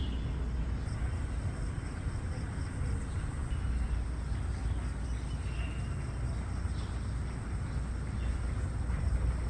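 Steady outdoor background noise, mostly a low rumble, with a faint short high note a little past halfway.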